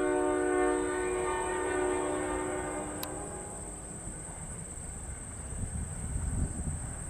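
Union Pacific locomotive air horn holding a chord that fades away about three to four seconds in, followed by the low rumble of the short train rolling by.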